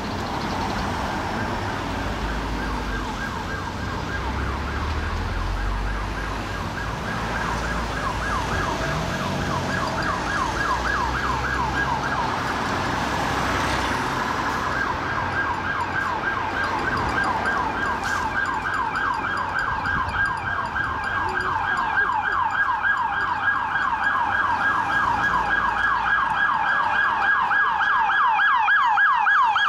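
Emergency-vehicle electronic siren in fast yelp mode, sweeping rapidly up and down and growing louder as the NYPD Emergency Service Unit truck approaches.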